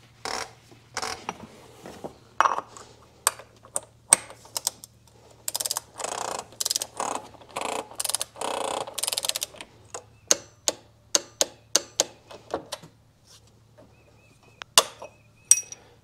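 Torque wrench ratcheting in quick back-and-forth strokes as it tightens the oil filter housing cap on a BMW N54 engine toward 25 newton meters. About ten seconds in, the strokes give way to separate sharp clicks, with two more near the end.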